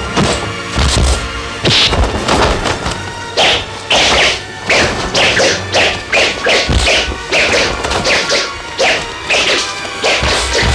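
Kung-fu fight sound effects: a quick run of sharp punch and block whacks and swishes, about two or three a second, over background music.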